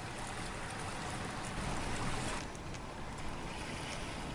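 Steady rushing noise of wind on the microphone and choppy lake water, with no distinct events.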